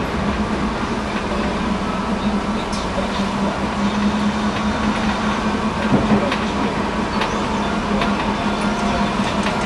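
Tram running along its tracks, heard from inside near the driver's cab: a steady running noise with a constant low hum, and scattered clicks and knocks from the wheels on the rails, one louder knock about six seconds in.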